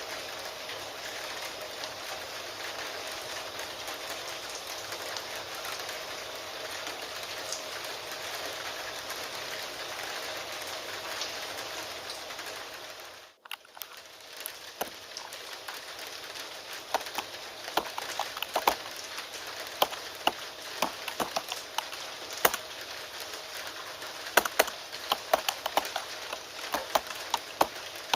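Steady rain for the first half, then a brief dropout about halfway through. The rain returns with irregular computer keyboard typing clicks, sparse at first and busier toward the end.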